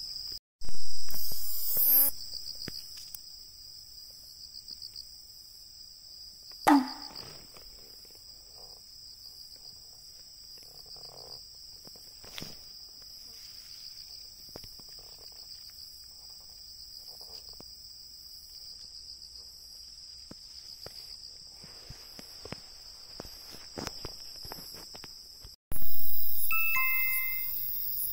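A chorus of night-singing crickets and katydids trilling steadily and high, with faint rustling of leaves as a hand searches the foliage. Several loud edited sound effects cut in: one near the start, one sliding down in pitch about seven seconds in, and a chime-like effect near the end.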